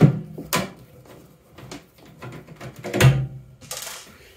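Handling knocks from a Phillips screwdriver and hands working on a microwave oven's sheet-metal back panel: a few sharp taps early on, then a heavier knock with a dull thump about three seconds in and a brief scrape.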